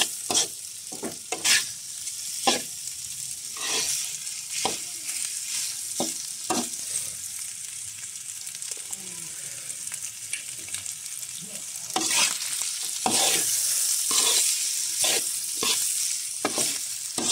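Goat meat and liver frying in a two-handled metal pan, stirred and scraped with a slotted metal spatula: a steady sizzle with sharp scrapes about once a second. The sizzle grows louder about twelve seconds in.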